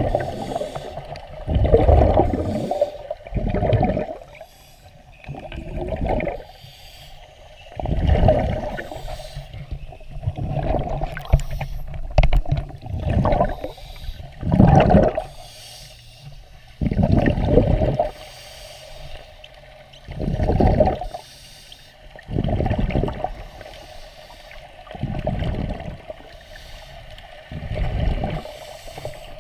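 Scuba regulator exhaust bubbles bursting past an underwater camera, one loud low bubbling burst with each exhaled breath, about every two to three seconds.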